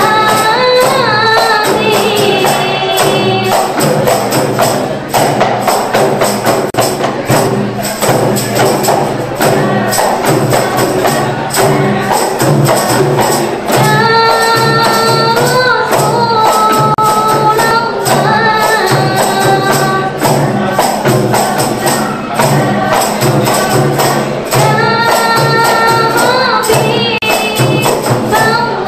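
Qasidah music: girls' voices singing an Islamic devotional song over a fast, steady percussion beat. The sung melody stands out clearly near the start, again about halfway through and near the end.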